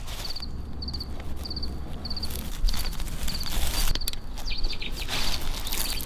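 Insect chirping, most likely a cricket: short high triplet chirps repeating about twice a second, over a low steady rumble. There are bursts of rustling about two, three and a half, and five seconds in, as of hands working in pine-needle litter.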